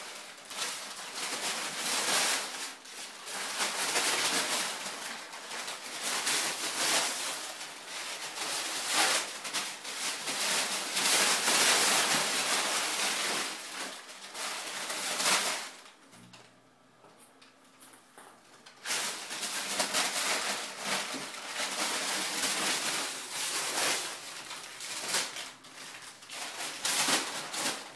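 Crumpled brown packing paper crinkling and rustling in irregular bursts as kittens pounce on it and scramble through it, with a quieter lull of a few seconds past the middle.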